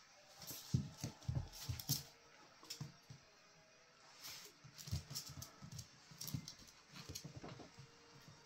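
Two schipperkes scuffling and wrestling on a laminate floor: claws clicking and skittering, with bodies bumping in irregular bursts. It is busiest in the first two seconds and again from about four to seven and a half seconds in.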